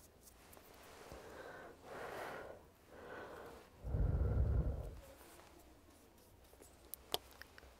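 Soft breaths close to the microphone, then a loud rush of air blown onto the microphone for about a second, heard as a deep rumble. Two or three short sharp clicks come near the end.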